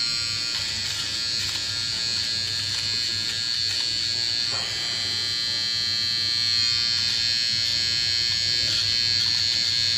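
Sonar HP-300 battery nose hair trimmer running with a steady high-pitched whine while trimming inside the nostril.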